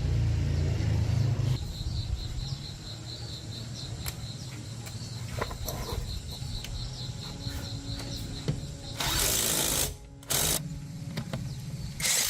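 A small petrol engine running steadily, loudest in the first second or so, with three loud bursts of hissing noise in the last few seconds. Insects chirp in a regular pulse behind it during the first half.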